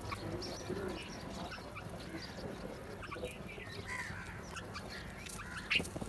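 Mixed bird calls from a feeding flock of house crows, red-vented bulbuls and mynas: many short chirps and sharp notes, with one louder sharp call near the end.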